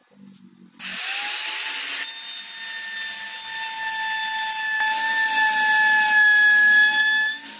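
Handheld trim router (laminate trimmer) spinning up about a second in with a rising whine, then running at a steady high whine while trimming the overhanging edge of HPL laminate glued on plywood. It stops just before the end.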